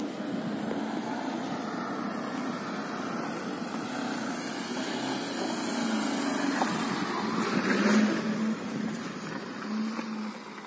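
Hyundai Santro hatchback driving on loose gravel and dirt: a steady engine hum with tyre and gravel noise, growing louder from about six seconds in and loudest around eight seconds.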